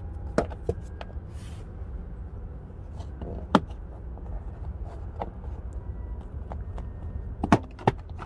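Plastic door sill trim panel of a 2019 Honda Pilot being pried off with a plastic trim tool: scattered clicks and sharp snaps as its retaining clips pop loose, the loudest about three and a half seconds in and two more near the end, over a low steady rumble.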